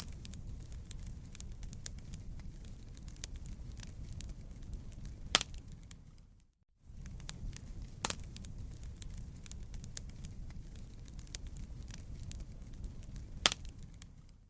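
Crackling wood fire in a fireplace: a steady low rumble of burning with constant small crackles and an occasional loud pop. The sound drops out briefly about halfway through, then resumes.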